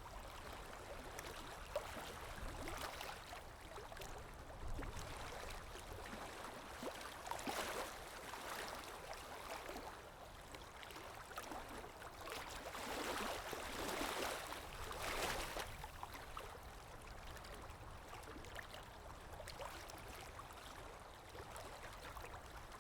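Small waves lapping against a shore or hull, with wind, swelling louder a little before halfway and again around two-thirds through, with faint small splashes and ticks.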